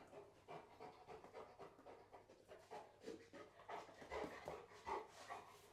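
A dog panting faintly in quick, uneven breaths.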